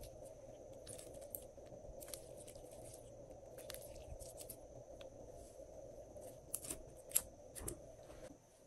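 Glossy pink glitter slime being stretched and let fall, giving scattered faint sticky crackles and pops, the loudest a few clicks late on, over a faint steady hum.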